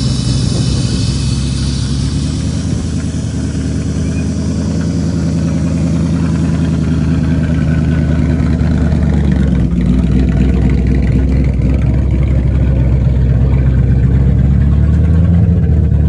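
Car engine running steadily, its pitch stepping up slightly about ten seconds in and again near the end.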